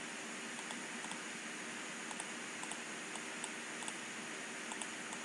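Faint, scattered clicks of a computer keyboard and mouse over a steady background hiss, as text is selected and the Ctrl+B bold shortcut is pressed.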